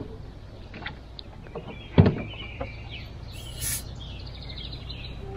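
A few small clicks and knocks, with one sharp click about two seconds in, over faint bird chirps and a quick high trill near the end.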